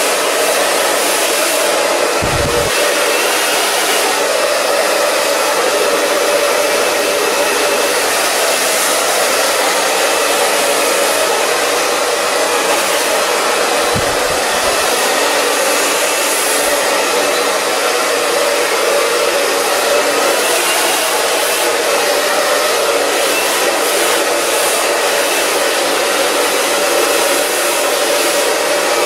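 Handheld hair dryer running steadily, blowing hair dry over a round brush.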